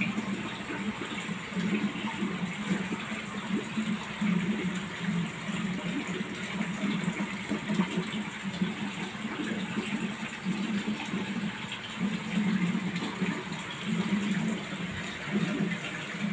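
Aquarium water running and bubbling, the filter or air line churning the tank's surface, with a low hum that swells and fades unevenly.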